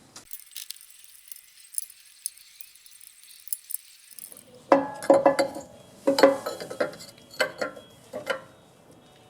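Metal tools and parts clinking and clanking as the pump is being taken off a pressure washer engine. There are light ticks at first, then a string of sharp, ringing metallic knocks over the last few seconds.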